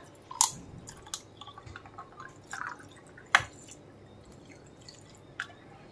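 Soda water poured from a plastic bottle into a glass over ice cubes: quiet fizzing with scattered drips and ticks, the sharpest about three and a half seconds in.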